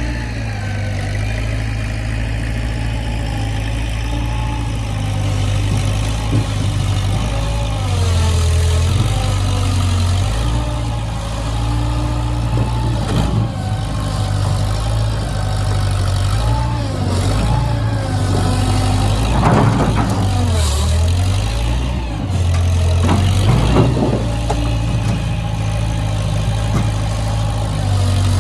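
Skid loader engine running, its speed rising and falling as it works, with several sharp clanks and knocks in the second half.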